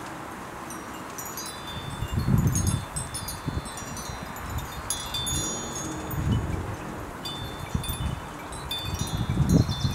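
Wind chimes tinkling in a breeze, many short high ringing tones overlapping, while gusts of wind buffet the microphone about two seconds in, again around six seconds, and loudest near the end.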